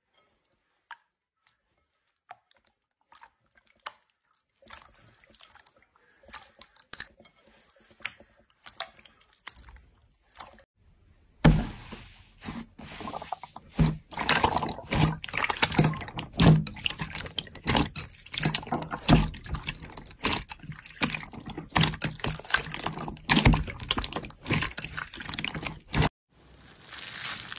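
Hands squishing slime: sparse wet clicks and pops at first, then, about eleven seconds in, continuous wet squelching and popping as the slime is kneaded.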